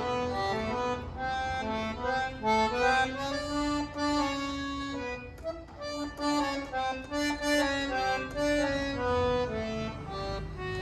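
Accordion (sanfona) played live: a melody of held, changing notes over sustained chords.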